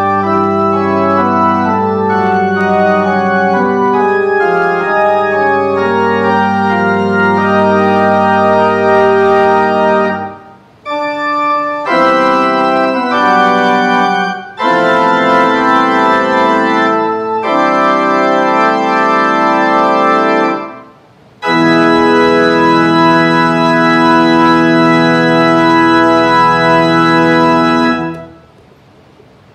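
Organ playing sustained chords in phrases with short breaks between them, with deep bass notes under the first phrase, stopping shortly before the end.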